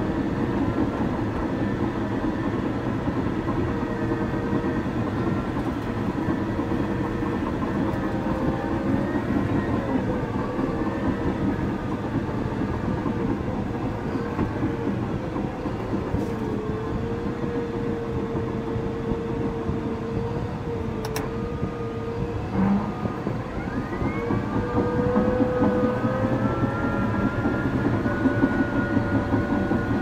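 Caterpillar D6 bulldozer working under load: steady diesel engine drone with a whine that dips and rises in pitch, over the rattle of the running gear. The whine climbs and the whole sound grows louder about two-thirds of the way through.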